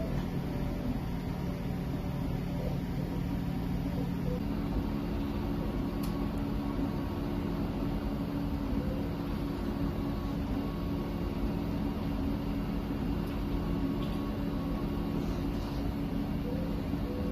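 CreatBot PEEK 300 3D printer running as it prints: a steady mechanical hum made of several low tones, whose pattern shifts about four seconds in, with faint higher whines coming and going.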